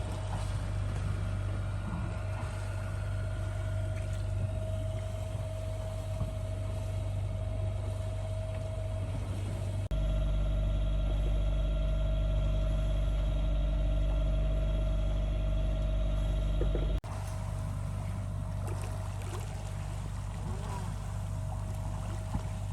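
A boat's engine running steadily under way. It is heard in three spliced stretches, and the middle one, from about ten to seventeen seconds in, is louder and deeper.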